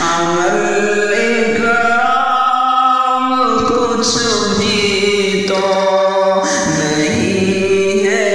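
Male voice singing a naat, an Urdu devotional song, in long held notes that slide from pitch to pitch.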